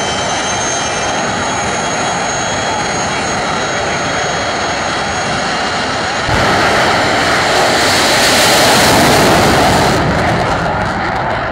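Jet dragster's engine running at the start line with a steady whine. About six seconds in it jumps sharply louder to full power with the afterburner lit as the dragster launches, and the sound fades as it pulls away down the track near the end.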